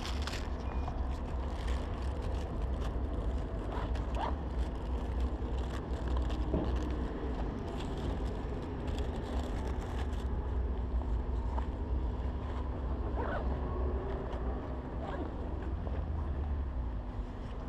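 Steady low rumble with scattered rustles and knocks from clothing, a paper bag and a backpack being handled against a body-worn action camera.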